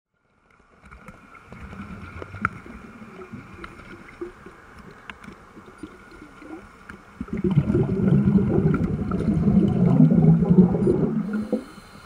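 Underwater recording of air bubbling out of a Mark V diving helmet's exhaust: a low gurgling of bubbles that swells into a loud rush about seven seconds in and dies away near the end.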